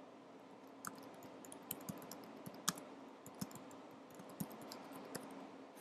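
Quiet, irregular clicking of computer keyboard keys as a username and password are typed, starting about a second in.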